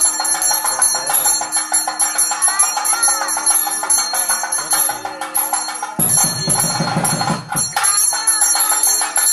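Brass temple hand bell rung rapidly and without pause, the ringing that accompanies the ritual bathing (abhishekam) of a deity's idol, with music behind it. A deeper sound swells in for a second or two past the middle.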